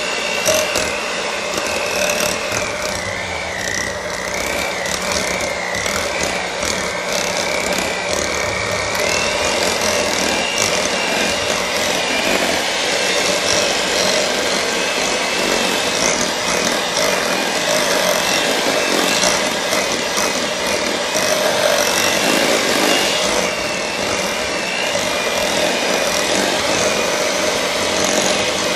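Electric hand mixer running steadily, its beaters churning a block of cream cheese in a glass bowl to soften it. A continuous motor whine that wavers slightly in pitch.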